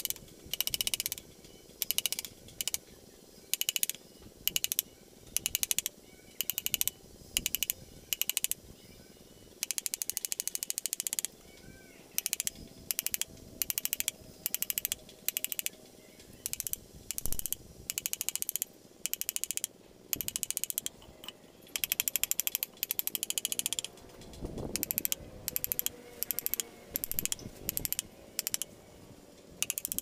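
Small carving chisel struck with a wooden mallet, cutting into a wooden relief panel. The taps come in quick runs of about half a second to a second, with short pauses between runs.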